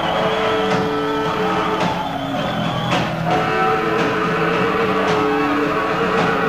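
A live rock band plays loud electric guitars that hold sustained, droning notes over a drum hit about once a second.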